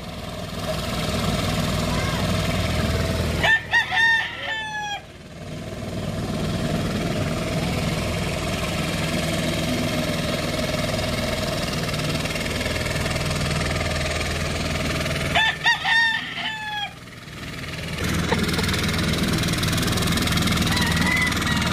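The small engine of a 'pagong' turtle hand tractor runs steadily as it churns through soft, boggy paddy mud. A rooster crows twice, about four and sixteen seconds in, and the engine sound drops away briefly during each crow.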